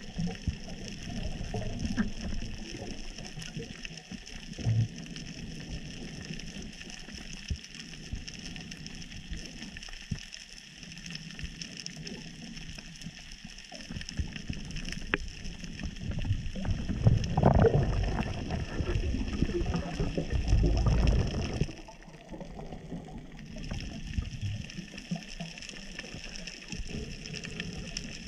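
Underwater ambience in a camera housing: a steady hiss with scattered faint crackling clicks, and a louder stretch of rumbling, gurgling water noise from about the middle that cuts off sharply a few seconds later.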